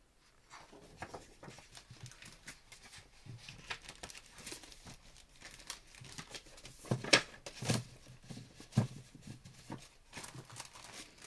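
Clear plastic packaging crinkling and crackling as a pad of scrapbook paper is handled and slid out, mixed with the rustle of paper sheets. The crackles are irregular, and the loudest come about seven to eight seconds in.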